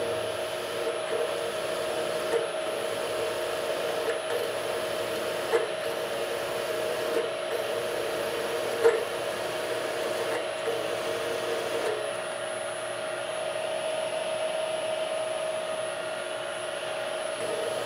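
Machine tool running steadily with a hum and a faint high whine, with light ticks over it. Part of the sound drops out about twelve seconds in, while the motor keeps running.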